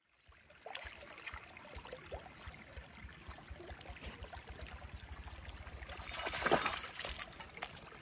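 Water trickling through a shallow, mossy spring seep, with a low fluttering rumble underneath. The water sound swells louder for about a second around six and a half seconds in.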